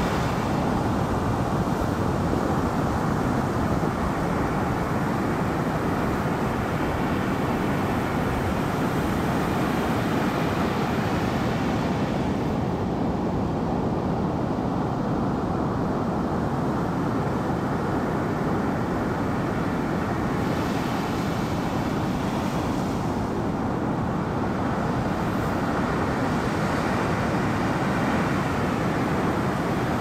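Steady wash and low rumble of ocean waves, the higher hiss easing and swelling back every several seconds.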